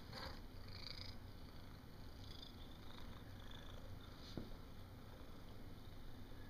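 Calico cat purring steadily while it is stroked, faint under the soft rustle of a hand on its fur, with one small tap about four seconds in.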